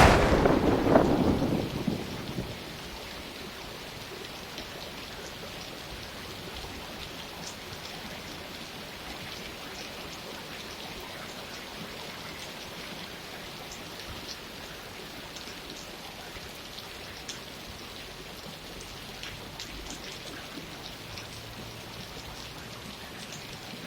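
Thunder rumbling and fading away over the first two seconds or so, then steady rain with faint scattered drop ticks.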